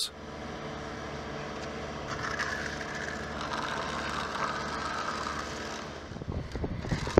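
Concrete mixer truck's engine and mixing machinery running steadily as it pours mix down its chute. About six seconds in, the sound turns to a rougher, uneven rumble.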